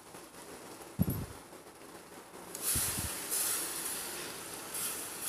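Water poured from a steel tumbler into a hot stainless-steel kadai of frying onion and goat brain, hissing and sizzling loudly as it hits the pan. A dull knock comes about a second in and two more just before the hiss starts.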